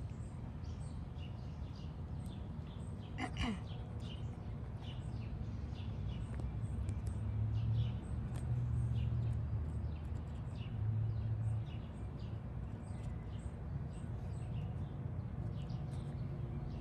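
Small birds chirping repeatedly in the background, with one quick falling whistle about three seconds in. A low rumble swells up in the middle and fades again.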